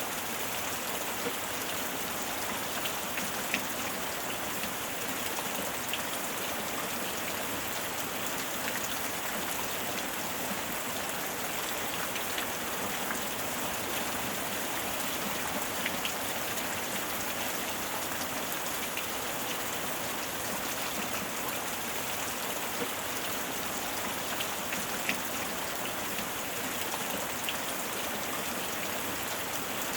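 Steady heavy rain falling on a surface, with scattered individual drops ticking through the even hiss.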